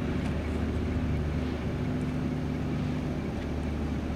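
A steady low mechanical hum with a light hiss, unchanging throughout.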